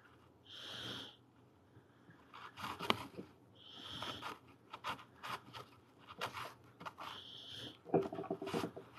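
Quiet hands-on handling: soft clicks and rubbing as fingers press clay and a glass eye onto a glass bottle, with a louder knock near the end. Close breathing through the nose is heard three times, about three seconds apart.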